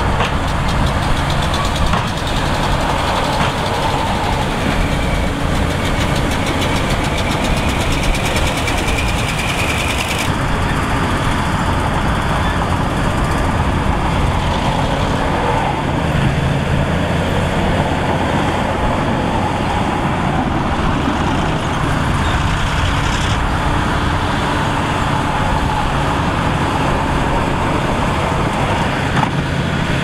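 Crawler bulldozer's diesel engine running steadily under load as the blade pushes soil.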